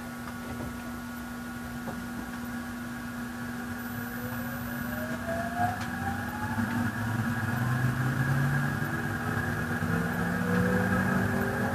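JR East E353 series electric train pulling away from a stop, heard from inside a motor car. Under a steady electrical hum, the IGBT-VVVF inverter and traction motors begin whining about four seconds in, in several tones that climb steadily in pitch as the train gains speed.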